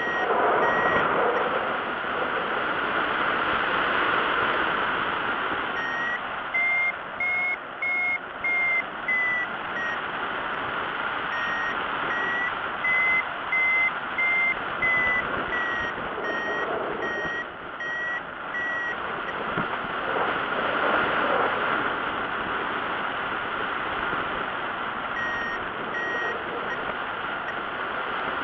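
Paragliding variometer beeping in runs of short tones whose pitch steps up and back down, the sign of the glider climbing in lift. The beeps come in several runs with gaps between, over a steady rush of wind on the microphone.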